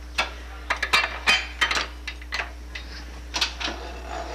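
Steel dough hook being fitted onto the shaft of a large commercial stand mixer: a series of sharp, irregular metal clanks and clicks.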